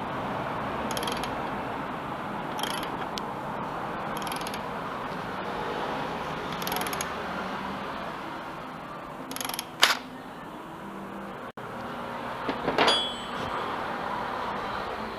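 Hand tools working metal parts on a scooter's engine hanger: a handful of short metallic clicks and clanks, the loudest about ten seconds in, over a steady hiss.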